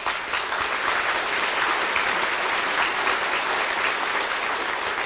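Large indoor audience applauding, a dense, steady clapping.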